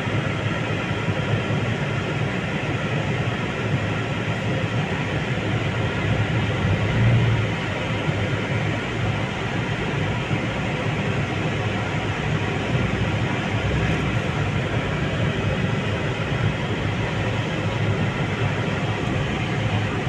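Steady rumble and hiss of a slow-moving vehicle's engine and tyres heard from inside its cabin, with a brief louder swell about seven seconds in.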